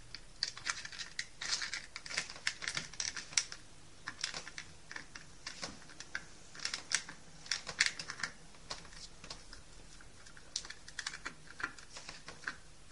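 Screwdriver turning a small self-tapping screw into a plastic telephone socket cover: a run of small, irregular clicks and scrapes, coming in clusters.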